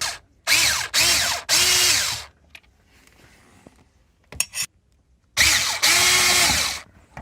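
Handheld power drill run in short bursts: three quick spins close together, then two more a few seconds later. Each whines up and falls back in pitch as the motor spins up and slows.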